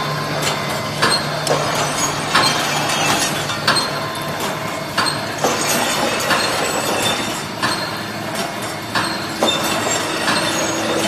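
Brick force wire mesh welding machine running, with repeated sharp metallic clacks about once or twice a second over a steady mechanical hum as the mesh is welded and fed through the slitting discs. A steady tone joins in about nine seconds in.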